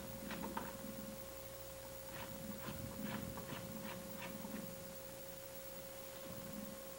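Spoke shave shaving the outside of an oak keg: short scraping strokes, two or three a second, in bursts that stop about two seconds before the end. A steady hum runs underneath.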